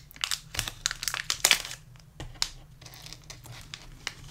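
Plastic chocolate-bar wrapper crinkling as it is handled by hand: a quick run of crackles for the first two seconds, then a few scattered ones.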